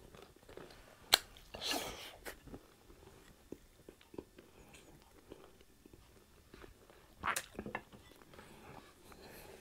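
Close-up chewing of crispy fried pork chop, with a few louder crunches: a sharp one about a second in, a longer one just after, and another around seven seconds.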